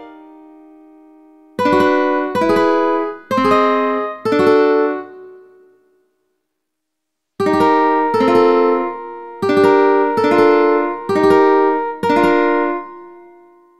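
Ukulele chords sounded one at a time from a chord-chart app, each struck once and left to ring: four in a row about a second apart, a pause of about a second and a half, then six more. A piano chord is dying away as it begins.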